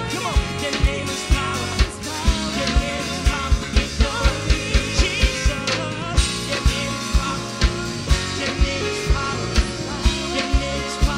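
Live band music with a fast, steady kick-drum beat, full chords and singing.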